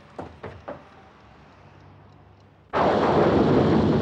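A few faint knocks, then about three-quarters of the way through a sudden loud clap of storm thunder that carries on as a steady rolling rumble with rain.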